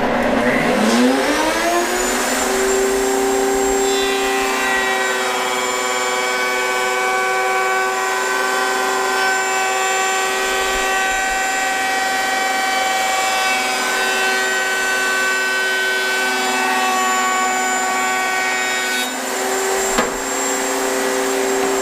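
Electric orbital sander starting up on Corian: its motor whine rises in pitch over about two seconds, then runs steadily. Near the end it dips briefly, with a click.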